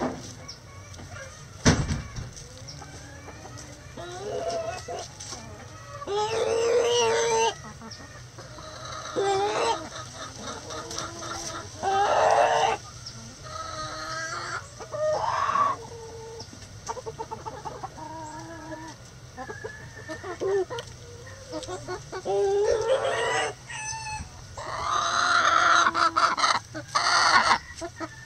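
Backyard chickens: roosters crowing several times, each call lasting a second or two, among hens clucking. A single sharp knock sounds near the start.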